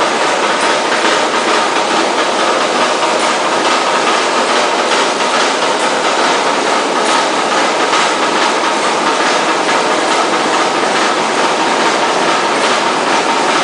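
Sauce-sachet pasteurizing machine running: a steady mechanical rushing clatter with many small irregular clicks and a faint hum.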